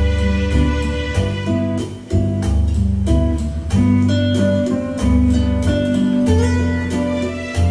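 A song played back from a cassette tape on a Harman/Kardon CD-491 cassette deck, with a steady beat and a bass line.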